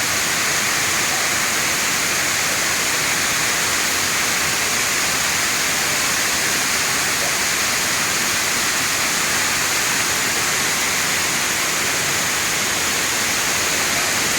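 Waterfall water pouring steadily, an even rushing noise that does not change.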